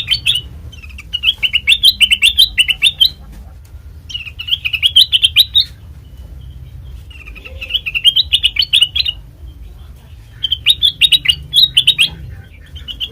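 Kutilang emas bulbul singing in repeated phrases of quick, warbling chirps, each phrase lasting a second or two with short pauses between, over a steady low hum.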